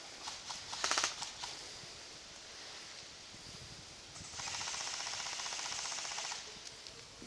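Airsoft electric guns firing full-auto: a short burst about a second in, then a steady burst of rapid clicking shots lasting about two seconds past the middle.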